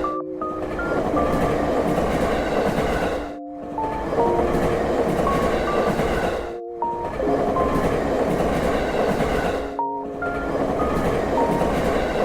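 Train running-noise soundtrack with a dense rolling rumble, overlaid by short melodic notes at stepping pitches. Everything drops out briefly about every three seconds, as in a looping clip.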